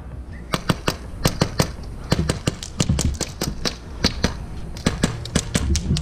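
Airsoft gunfire: irregular sharp cracks, several a second, of shots and BBs striking plywood barricades, with a few low thumps in between.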